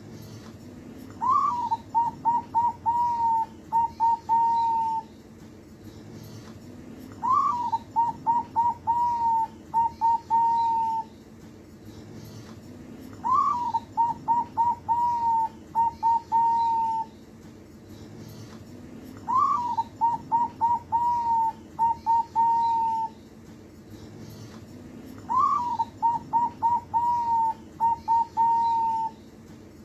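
Young zebra dove (perkutut) cooing its song five times, one phrase about every six seconds. Each phrase opens on a higher note, runs into a string of short clipped notes and ends on a longer held note.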